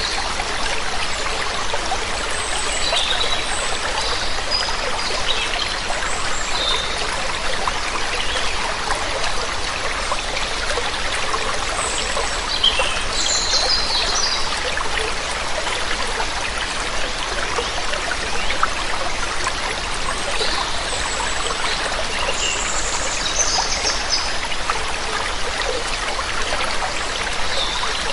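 Waterfall water rushing steadily, with scattered short bird chirps and trills above it.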